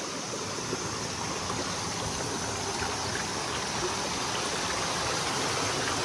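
A mountain stream rushing, a steady wash of water that grows slightly louder.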